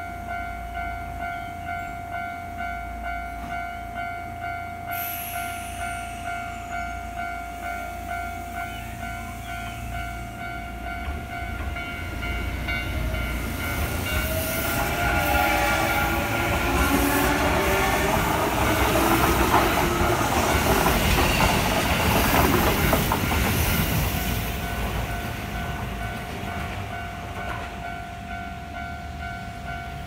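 Japanese railway crossing alarm dinging over and over while the barriers are down. A Kintetsu Nara Line electric commuter train passes over the crossing, its rumble and wheel clatter building from about twelve seconds in, loudest a little past halfway, then fading away while the alarm keeps ringing.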